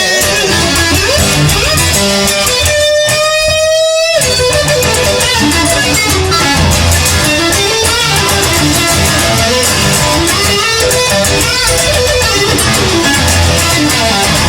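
Instrumental passage of a song led by guitar. About three seconds in, the low end drops out for about a second while a single held note bends slightly upward.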